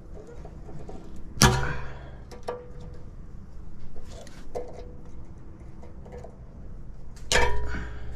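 Two sharp metal-on-metal clanks, about six seconds apart, each with a brief ring, and a few lighter clicks between them: pliers knocking against the steel of a car's tie rod end and steering knuckle while a cotter pin is bent into place.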